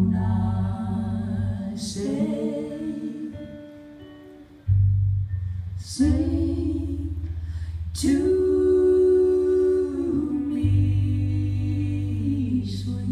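Two women singing a slow song with long held notes, with acoustic guitar and a low steady tone underneath.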